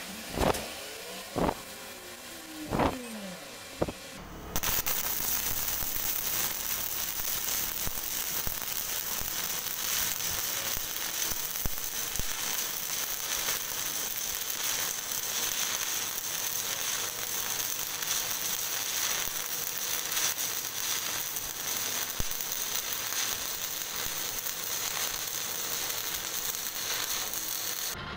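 Four short sweeping whooshes in the first few seconds. Then a stick-welding arc crackles and sizzles steadily as an electrode lays a fillet weld, and it stops abruptly near the end.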